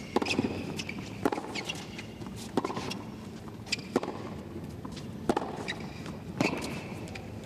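Tennis rally on a hard court: rackets striking the ball back and forth at an even pace, six strikes about 1.3 seconds apart.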